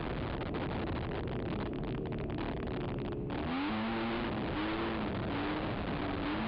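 Racing ATV engine revving as it speeds along a dirt trail, its pitch rising and falling with the throttle, under a constant rush of wind and trail noise on the onboard camera. A little past halfway the note dips briefly, then climbs again.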